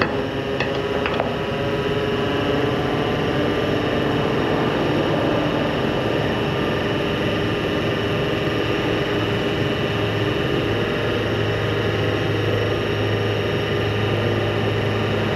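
Crane sign truck's engine running steadily with a pitched hum. A deeper hum grows stronger about ten seconds in, and there are a few light clicks about a second in.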